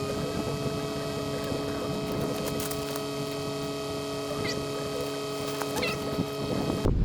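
A steady mechanical hum made of several fixed tones, with two brief faint chirps. Near the end it cuts off suddenly to wind noise on the microphone.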